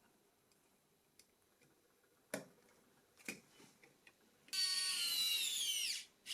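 A couple of small clicks of phone parts being handled, then a small electric screwdriver runs for about a second and a half, its high whine dropping in pitch as it winds down.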